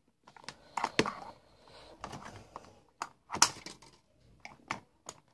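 Irregular clicks and taps from hands handling a cardboard-and-plastic toy box as it is being opened.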